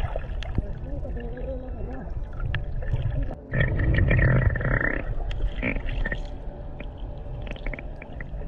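Humpback whale calling underwater: wavering low calls that bend up and down, over a steady low underwater rumble with scattered clicks. A louder, noisier stretch comes about three and a half seconds in and lasts over a second.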